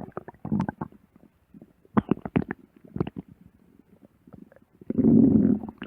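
Human stomach growling and gurgling: irregular short pops and squelches, a quick cluster of them about two seconds in, then a longer, louder low gurgle near the end.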